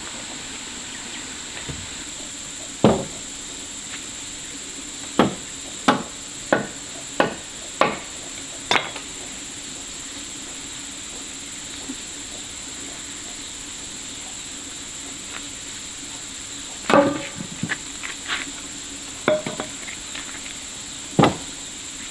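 Hammer blows on wood: a single knock, then a run of six evenly spaced strikes, a pause, and a later cluster of quicker knocks with two more single blows. A steady high insect drone runs underneath.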